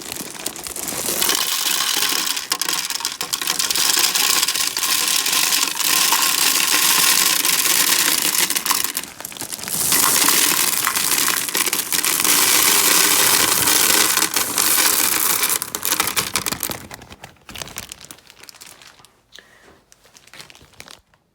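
Mike and Ike candies poured back into a vending machine's candy canister: a dense rattle of many small candy pieces with crinkling, in two long pours with a short break about nine seconds in, then a few scattered clicks near the end.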